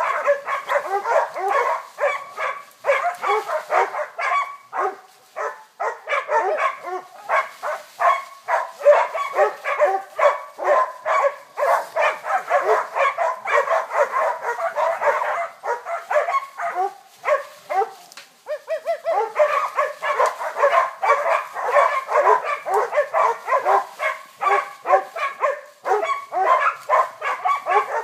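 Several Catahoula cow dogs barking rapidly and without let-up, their barks overlapping, with a brief lull about eighteen seconds in: working dogs baying a wild bull.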